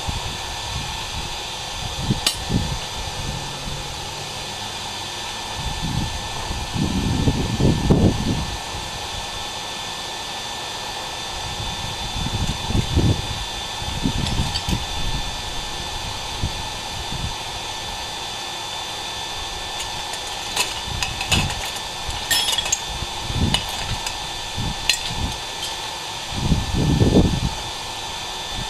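Steady whir of an electric forge blower, with a few short low rumbles and a handful of light metallic clinks about two-thirds of the way through.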